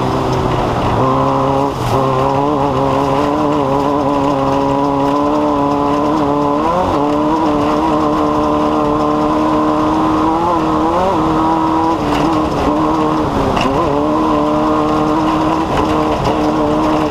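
Off-road race vehicle's engine running at steady revs, with brief dips in pitch that recover about six and a half, eleven and thirteen and a half seconds in.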